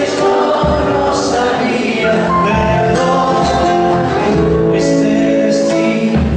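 Live band playing: a male singer with acoustic guitar and drum kit, the voice holding long sung notes over a steady beat.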